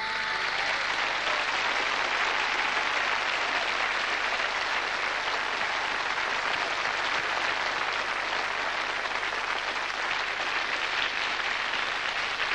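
Studio audience applauding steadily after a song.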